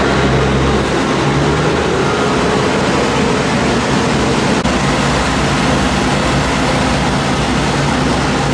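Ferrovie Appulo Lucane narrow-gauge diesel train running steadily: a loud, even rumble of running noise with a low engine hum underneath, and a faint click about halfway through.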